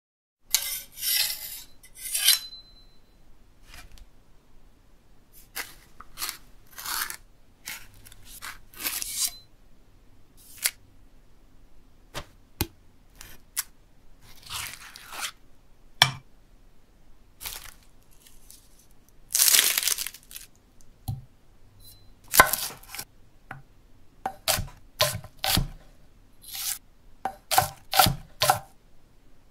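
A string of separate cutting, tearing and scraping sounds, with a few light metallic clinks. Near the end comes a quick, even series of knife chops on a wooden chopping block.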